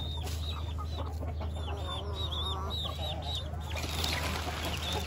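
Chickens clucking, with a quick run of short, high peeps from chicks over the first three or four seconds, and a steady low hum underneath.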